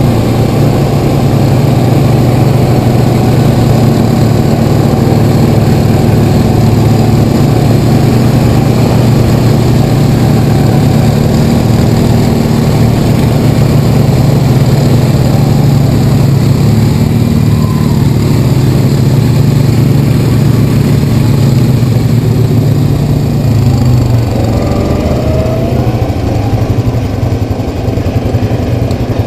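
Honda Rancher ATV engine running steadily at trail speed under the rider, with a steady rushing noise over it. About 24 seconds in, the engine note drops as the machine eases off.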